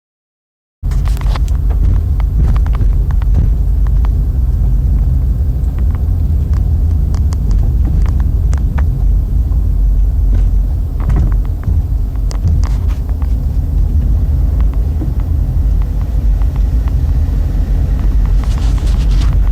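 Loud, steady low rumble with scattered clicks and ticks, cutting in suddenly about a second in after silence.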